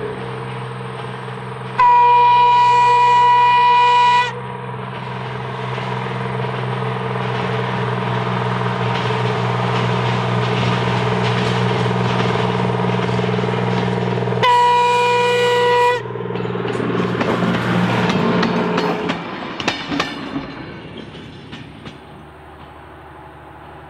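Diesel-electric rail motor 63RM, powered by twin Detroit Diesel 6-71 engines, running as it approaches and sounding its horn twice: a long blast about two seconds in and a shorter one later. Near the end it passes, with the wheels clicking over the rail joints as the engine sound fades.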